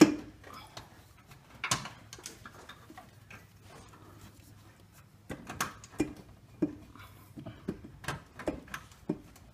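Scattered metallic clicks and knocks as a cast-aluminium intake manifold is rocked by hand against its mounting studs, the manifold still stuck on the studs. A sharp knock comes at the start, another about two seconds in, then a string of lighter clicks through the second half.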